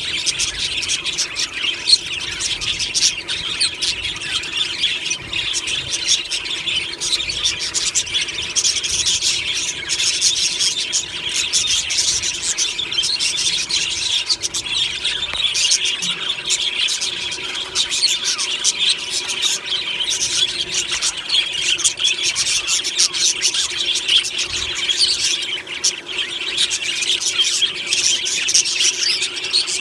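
A colony of budgerigars chattering, chirping and squawking continuously, many birds at once.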